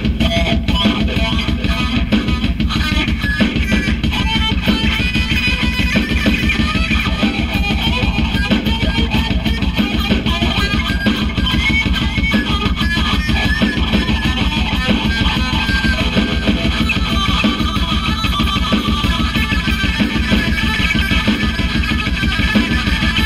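Electric guitar playing a fast run of single-note lines over a dense, rapid pulse in the low end.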